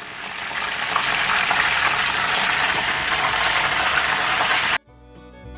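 Breaded chicken skewers deep-frying in hot oil: a dense, steady sizzle that builds over the first second and cuts off abruptly near the end, where plucked-string instrumental music starts.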